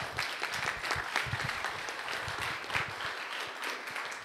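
An audience applauding: steady clapping of many hands.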